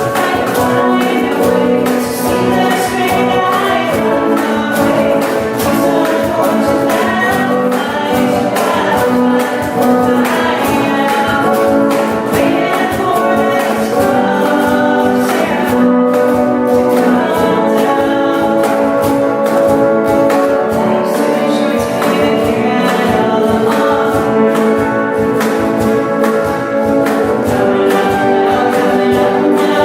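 A group of voices singing a pop song together live, over instrumental backing with a steady beat.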